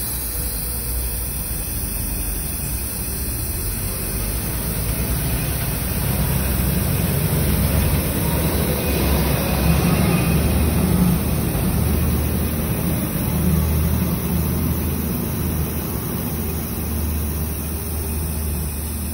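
SABALON 420 mL hair spray aerosol can held open, spraying continuously in a test of how long the spray lasts: a steady hiss with a low rumble underneath, a little louder in the middle.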